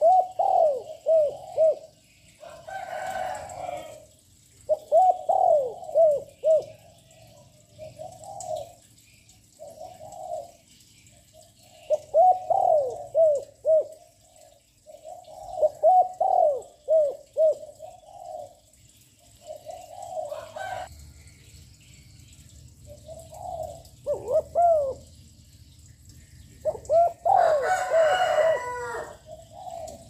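Spotted dove cooing its song, one low, rolling phrase after another, about a dozen times with short pauses. This is the territorial call that a caged decoy dove gives to lure wild doves.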